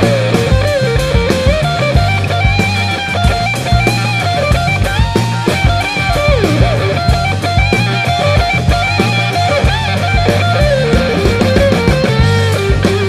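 Background rock music with electric guitar carrying a wavering melody over a steady drum-kit beat.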